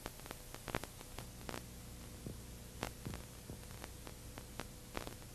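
Faint film-soundtrack noise: a steady hiss and mains hum, broken by scattered irregular clicks and pops.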